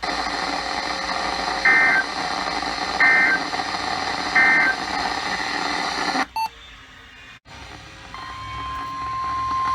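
Emergency Alert System end-of-message code over radio hiss: three short electronic bursts of two alternating pitches, about a second and a half apart, marking the end of the severe thunderstorm warning. The sound then drops out to a quieter hiss, and about two seconds later a steady single-pitched alert tone begins: the National Weather Service 1050 Hz warning tone that opens the next alert.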